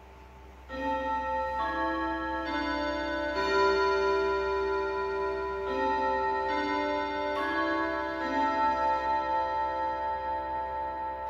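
Junghans W64 Excella S8 pendulum wall clock chiming the half hour on its rods: a melody of about eight ringing, overlapping notes that starts just under a second in and is left to die away, over the faint tick of the movement.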